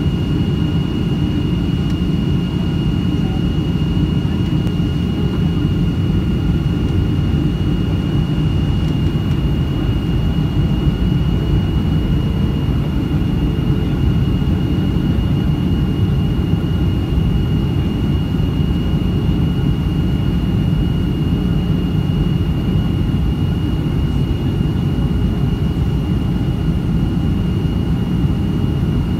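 Jet airliner cabin noise from a window seat over the wing of a Boeing 737 on its landing approach: a steady low rumble of the turbofan engines and the air flowing past, with a thin steady whine above it.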